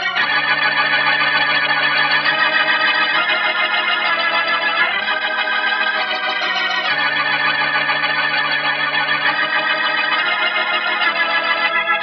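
Organ music: held chords with a wavering vibrato, moving to a new chord every second or two, on an old broadcast recording with the highs cut off.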